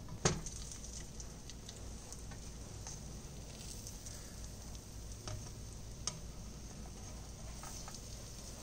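Pancake batter sizzling in a hot nonstick frying pan, a steady high hiss, with one sharp knock about a third of a second in and a lighter click around six seconds.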